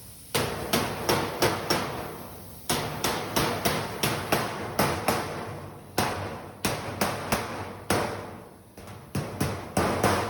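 Repeated hammer blows on a sheet-metal duct elbow, about three a second in runs broken by short pauses. This is the cheek's right-angle flange being seated into the heel's female Pittsburgh pocket and the Pittsburgh lock being closed over it.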